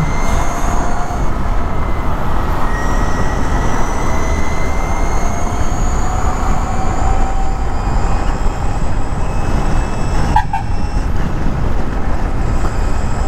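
Heavy wind rush on the microphone from an Ather 450X electric scooter ridden fast. Under it, the scooter's electric motor gives a thin whine that climbs slowly in pitch as the scooter accelerates. There is a brief break in the sound about ten seconds in.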